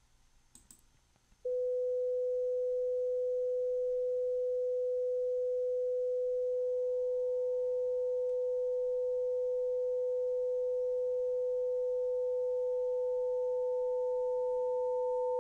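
A generated 500 Hz sine test tone starts about a second and a half in and holds steady. About five seconds later a second, much quieter tone around 1 kHz joins it, standing in for second-harmonic distortion, and grows steadily louder. At first it is masked by the 500 Hz tone, and near the end it breaks the masking curve so that two distinct tones can be heard.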